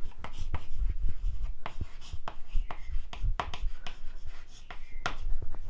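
Chalk writing on a chalkboard: an irregular run of short taps and scratches as a line of handwriting is written.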